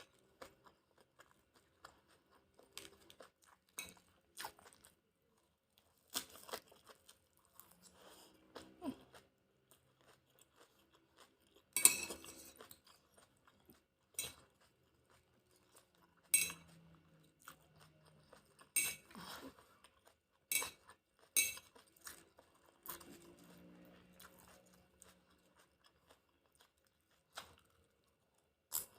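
Close-miked eating sounds: chewing chicken udon, with sharp mouth clicks and smacks every one to three seconds and softer chewing between.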